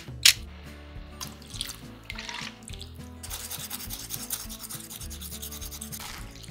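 Seasonings being added to raw chicken pieces in a glass bowl and worked in by hand: a sharp click near the start, then soft rubbing and rasping sounds, with quiet background music underneath.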